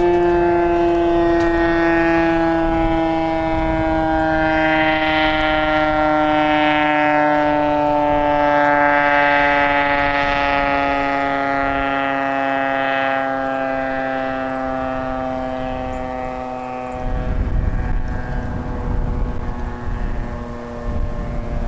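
Federal Signal STH-10 outdoor warning siren winding down, its chord of tones sliding slowly lower in pitch. About seventeen seconds in the siren fades and a low, uneven rumble comes up beneath it.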